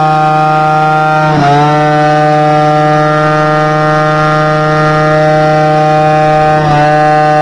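180 cc dragster scooter engine held at high revs during a burnout: a loud, steady high-pitched note that dips in pitch briefly twice, about a second and a half in and about a second before the end.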